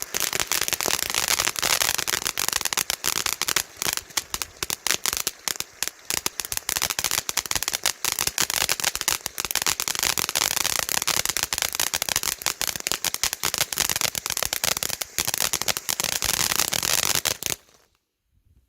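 Dragon Fire firework fountain by Standard Fireworks burning in a fast, dense crackle of popping sparks that cuts off suddenly near the end, as the fountain burns out.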